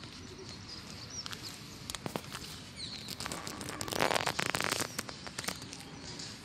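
Outdoor background with a few faint bird chirps, scattered clicks, and a louder rustling, crackling stretch about four seconds in.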